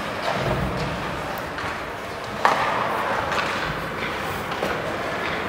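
Sounds of ice hockey play: sticks and puck clacking and skates on the ice, with player voices, and one loud sharp knock about halfway through.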